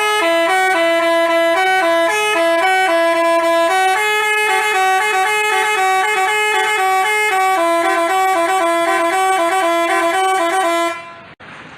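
Basuri telolet horn playing a fast tune of quickly changing horn notes, cutting off suddenly about a second before the end.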